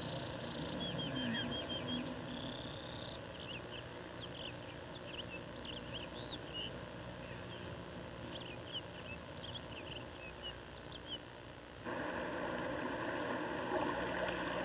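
Birds chirping in many short, high calls over a faint natural background. About twelve seconds in it cuts abruptly to a louder, steady rush of water.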